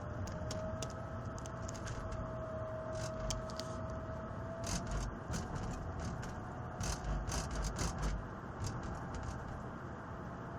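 Failing turbocharger on a Mercedes 320 CDI diesel whistling: a thin steady whistle over the running vehicle, edging up in pitch, then dropping a little and fading about halfway through. The turbo was worn out; both its wheels, its shaft and its bearings needed replacing. Scattered clicks and rattles sound in the middle seconds.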